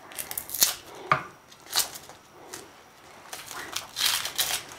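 Kitchen knife cutting red onion on a wooden chopping board: a few separate cuts and knocks, then a quicker run of them near the end. The knife is not sharp enough.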